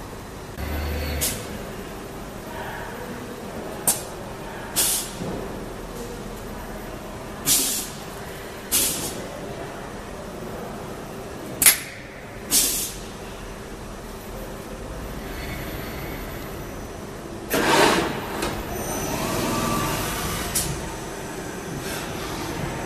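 Short bursts of compressed-air hiss, about nine spread through the stretch, as the pneumatic grippers and valves of a robot-loaded CNC lathe cell actuate, over a steady machine hum with a faint constant tone.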